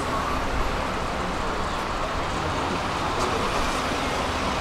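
Steady city street traffic noise: a continuous rumble and hiss of passing road vehicles, with no single vehicle standing out.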